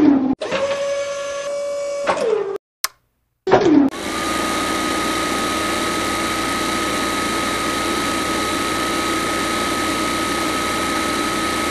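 Small DC toy motor of a model borewell drilling rig switched on. It runs for about two seconds and winds down, then after a short pause starts again and runs steadily with a high whine.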